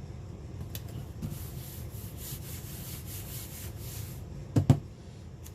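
Sheets of scrapbook paper sliding and rubbing against each other and the work surface, then two quick, loud thumps close together near the end.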